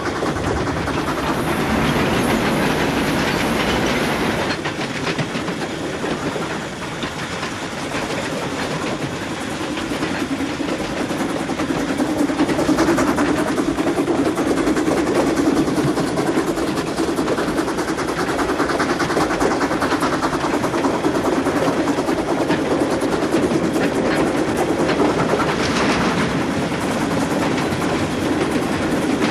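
Steam-hauled train running at speed: a steady rush of wheel and wind noise with rapid clattering of the wheels over the rails.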